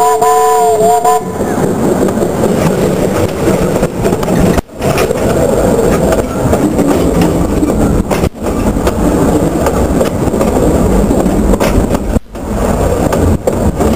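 A narrow-gauge steam locomotive's chime whistle sounds a steady three-note chord that stops about a second in. The locomotive and its cars then roll directly overhead: a loud, rough rumble of steel wheels on rail, dipping sharply for a moment about every four seconds.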